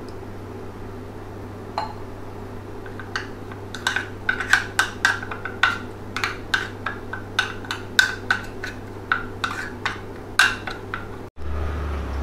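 A steel spoon stirring wet spice paste in a small ceramic dish, clinking against the dish about twice a second from about three seconds in until near the end. A low steady hum runs underneath.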